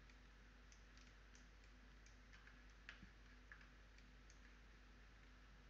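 Near silence: faint room tone with a few scattered faint computer mouse clicks.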